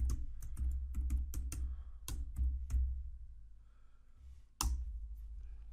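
Typing on a computer keyboard: a quick run of key strokes for about three seconds, then one louder click more than a second later, over a low steady hum.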